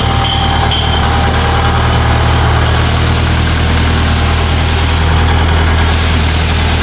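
Kubota L5018 tractor's diesel engine running at a steady speed.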